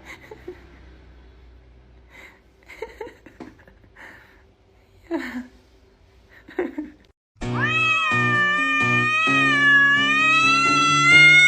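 A cat meowing: after a few faint short sounds, one loud, long drawn-out meow of about four seconds begins about two-thirds of the way in, its pitch wavering, over background music.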